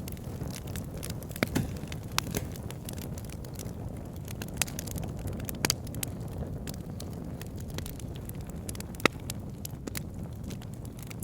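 Wood campfire burning, with a steady low rumble and frequent sharp crackles and pops, the loudest pop about nine seconds in.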